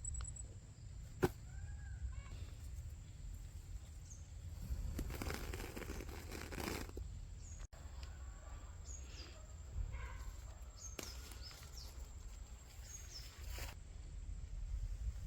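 Poultry chicks peeping faintly in short falling chirps over a low rumble and some rustling, with one sharp click about a second in and a steady faint high whine.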